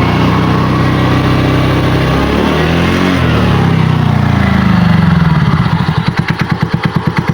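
TVS Ntorq 125 scooter's single-cylinder four-stroke engine running, its pitch dipping and rising in the middle before it settles into an even putter at idle. It runs cleanly, with no 'cut-cut' knock, its one-way starter clutch freshly repaired.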